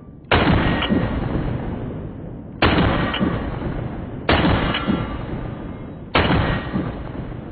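Mossberg 930 SPX 12-gauge semi-automatic shotgun fired four times, about two seconds apart. Each shot is a sharp blast followed by a long, slowly fading boom.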